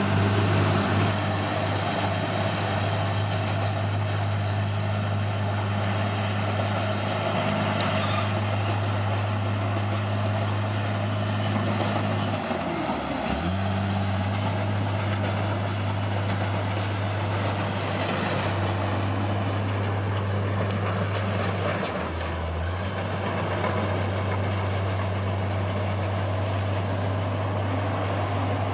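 Caterpillar D6R bulldozer's diesel engine running steadily with a deep hum. Its pitch dips briefly twice, a little before halfway and again about three quarters through.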